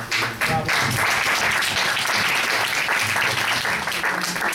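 Audience applauding: scattered claps that build within the first second into steady, dense clapping from many hands.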